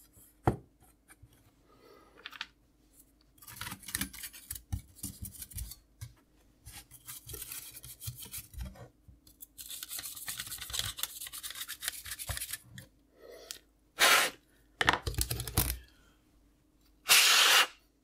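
Cotton bud rubbing and scraping inside the dusty 3.5-inch floppy drive of an Amiga A600, in irregular scratchy bursts. Near the end come a few loud puffs of breath blown into the drive to clear the dust, the last the longest.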